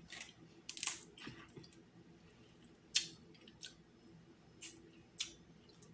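Eating snow crab legs: scattered soft clicks and cracks of shell and mouth sounds, with one sharper crack about three seconds in.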